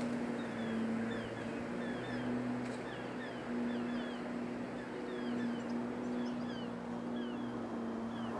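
Small birds chirping over and over in short, high calls that fall in pitch, over a steady low mechanical hum.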